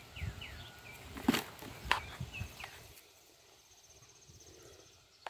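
Two knocks and some rustling from a phone being handled, about a second and two seconds in. Short high chirps sound during the first three seconds, and a faint steady high insect trill carries through the second half.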